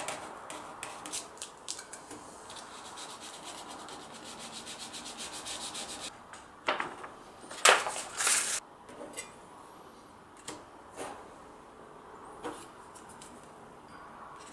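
A metal scraper rubbing over plastic film on a circuit board, spreading UV solder mask underneath: a quick run of short scraping strokes for the first six seconds, then a few louder, sharper rubs about seven to eight and a half seconds in, and occasional light taps after.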